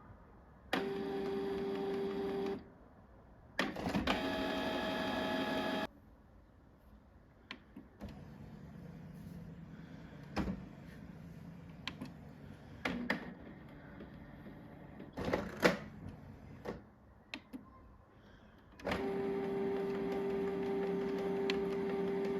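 Canon Pixma G3420 inkjet printer's motors running in two short spells, then a run of scattered clicks and knocks from the mechanism, then a steady motor run again from about three seconds before the end.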